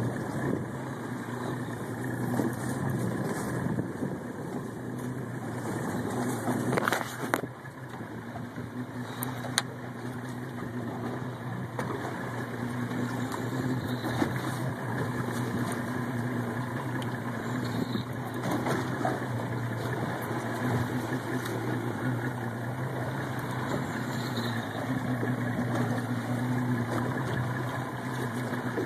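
Boat engine running steadily at idle, a low hum under a rush of wind and water noise. A couple of sharp clicks sound about seven and nine seconds in.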